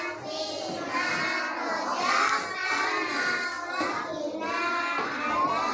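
Many children's voices at once, singing and chattering over one another.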